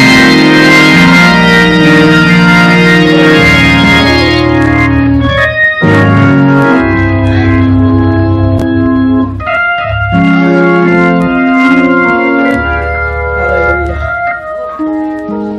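Organ playing slow, held chords over a bass line, the chord changing every second or two, with brief breaks about six and ten seconds in.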